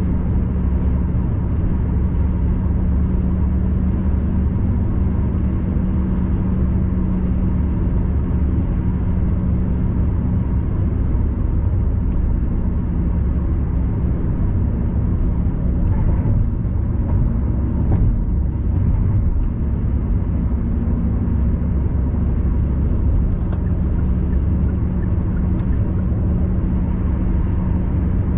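Steady road noise inside a car cruising on an expressway: a low rumble with a steady hum, and a few brief clicks in the second half.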